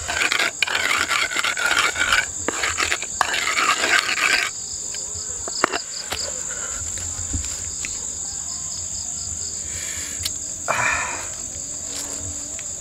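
Pestle scraping and grinding rujak chili-sugar paste in a mortar (cobek and ulekan) in rapid strokes, stopping about four and a half seconds in. A steady high-pitched chorus of insects runs underneath throughout.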